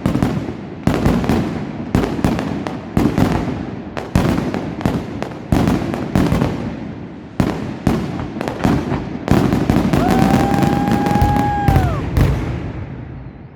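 New Year fireworks going off: a dense run of loud bangs and crackling bursts, one after another, thinning out near the end. About ten seconds in, a steady whistling tone holds for about two seconds and then drops in pitch.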